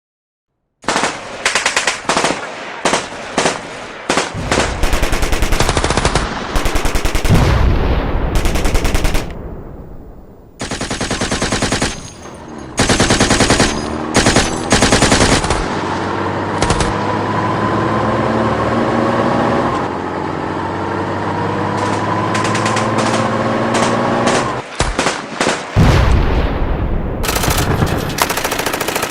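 War sound effects: bursts of rapid machine-gun fire mixed with single gunshots, with a short lull about ten seconds in. From about sixteen to twenty-four seconds, a droning tone that slowly rises in pitch, twice, runs under the firing.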